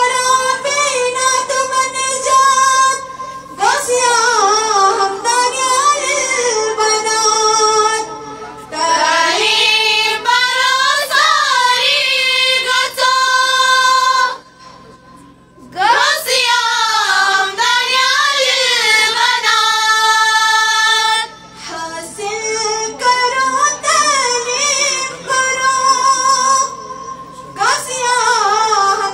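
A woman singing a devotional melody in long, gliding phrases, with a brief break about halfway through.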